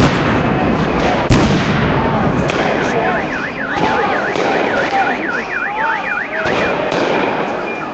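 A crowd of protesters shouting, with a sharp bang at the start and another about a second later, and fainter bangs near the end. From about two and a half seconds in, an electronic siren warbles rapidly up and down, about three cycles a second, for some three and a half seconds.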